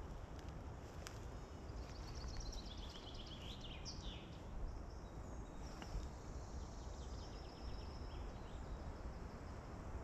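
A small songbird sings twice, each song a quick trill of repeated notes that steps down in pitch and ends in a short flourish. Underneath is a steady hiss of forest wind with a low rumble and a few faint clicks.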